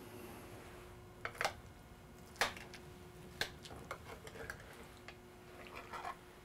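Metal serving spoon clinking and scraping against a ceramic baking dish and stoneware plate as a portion of potato gratin is served out: a scatter of separate clinks, the sharpest about two and a half seconds in, and a short scrape near the end.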